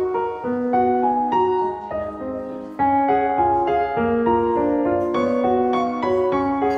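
Background music: a light piano-led tune, one note after another with no break.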